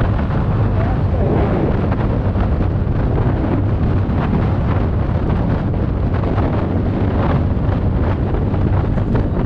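Steady low wind rumble on the microphone while riding a TVS Ntorq 125 Race XP scooter at about 60–65 km/h, with the scooter running and tyre noise underneath.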